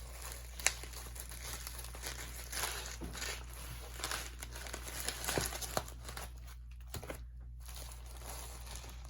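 Plastic bubble wrap crinkling and rustling as it is unwrapped and pulled off packed albums, with sharp clicks among the rustling and a brief lull about seven seconds in.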